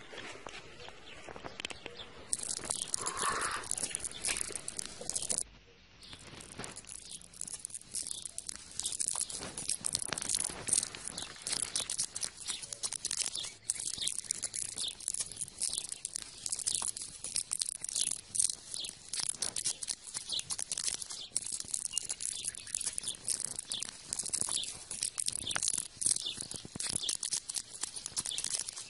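Continuous irregular scratchy crunching and scraping, with a short lull about six seconds in.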